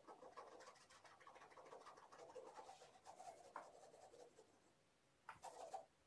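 Faint kitten purring, a rough, rapidly fluttering hum, fading about four seconds in, with a brief louder sound shortly before the end.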